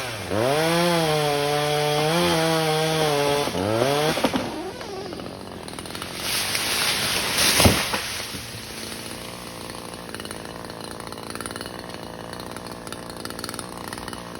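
Chainsaw revved at full throttle for about four seconds, then dropping back to idle. Around the middle comes a loud rushing noise that ends in a sharp crack, and the saw idles on afterwards.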